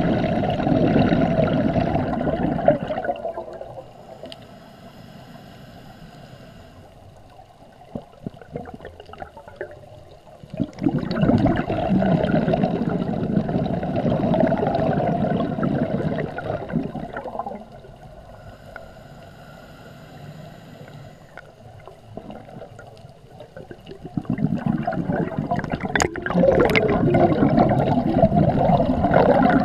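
Scuba diver breathing through a regulator underwater: three long bursts of exhaled bubbles gurgling, a few seconds each, with quieter inhalations between them.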